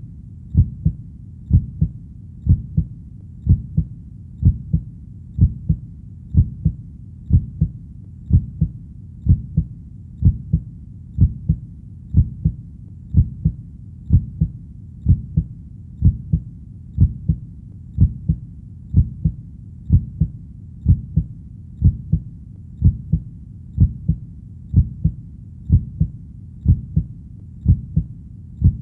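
Heartbeat sound: a steady, even double thump (lub-dub) about once a second, low in pitch, over a faint steady low hum.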